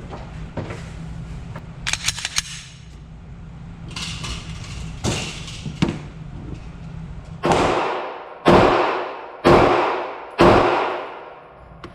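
Four shots from a 9mm pistol fitted in a META Tactical MX-1 chassis, fired about a second apart, each with a long echoing decay.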